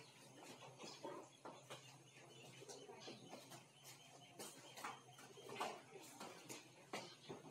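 Near silence: quiet room tone with a steady low hum and scattered faint clicks and knocks.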